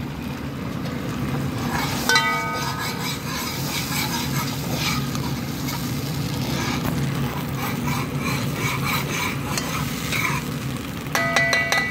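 Sweet-and-sour sauce of soy sauce, vinegar, garlic and sesame seeds sizzling and bubbling in a nonstick pan while a metal spoon stirs and scrapes through it. Short ringing clinks come about two seconds in and again near the end.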